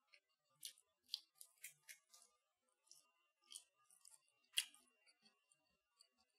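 Close-up chewing of a crisp breaded, air-fried chicken kiev ball: irregular small crunches and mouth clicks, one louder crunch a little past halfway.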